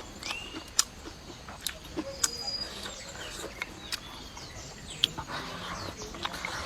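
Sharp clicks and crunches of eating at a meal, with birds chirping in the background.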